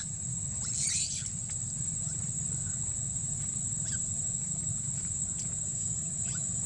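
Steady high-pitched buzzing of insects over a low background rumble, with a few short faint high calls about a second in and twice more later.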